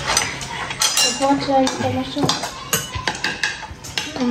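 Metal spoons clinking and scraping against ceramic soup bowls during a meal: a run of sharp clinks.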